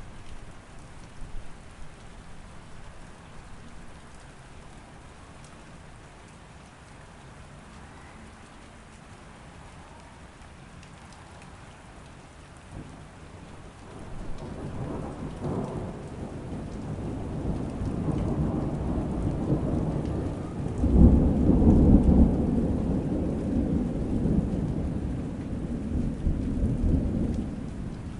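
Steady rain falling, with a long rolling rumble of thunder that builds about halfway through, peaks a little later and fades away near the end.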